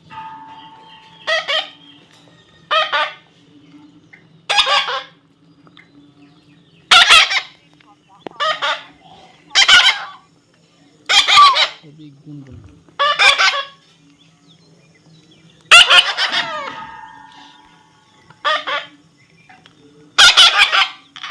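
Baby parrot giving harsh, loud squawks, about a dozen separate calls spaced every second or two.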